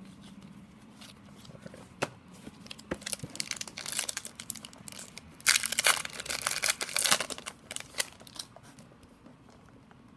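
Upper Deck hockey card pack wrapper being torn open and crinkled by hand, with scattered crackling that builds to a loud stretch of crinkling about halfway through, then dies down.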